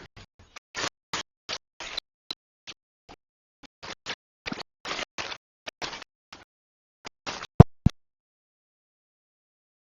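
A run of short, irregular scraping strokes, several a second, then two sharp knocks about seven and a half seconds in.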